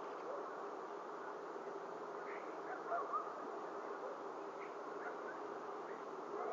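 Steady outdoor background hiss from the nest camera's microphone, with a few faint, short bird chirps about three seconds in.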